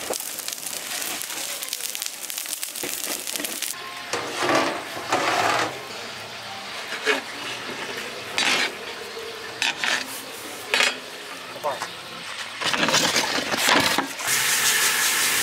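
A long metal ladle stirring and scraping through cooked biryani rice in a large aluminium cooking pot. From about four seconds in there are a series of separate scrapes and knocks against the pot. A steady hiss fills the first few seconds.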